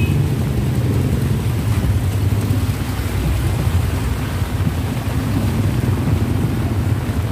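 Heavy rain hissing steadily on the street, over the low running of idling vehicle engines, motorcycle tricycles close by.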